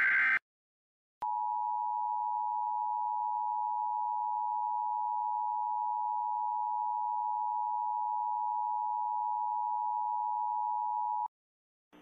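Emergency Alert System broadcast alert: the last of a short buzzing digital data burst ends just after the start, and about a second later the EAS attention signal comes in, one loud steady electronic tone held for about ten seconds before it cuts off abruptly.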